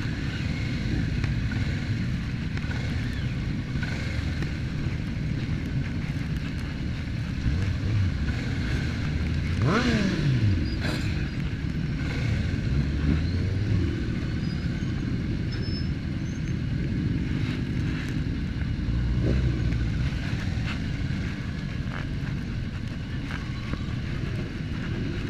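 Several motorcycle engines idling and rolling at walking pace in a group. About ten seconds in, one engine is revved briefly and its pitch falls quickly back down.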